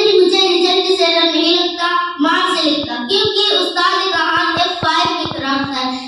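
A girl singing into a microphone in long, held melodic phrases, with a few faint low thumps.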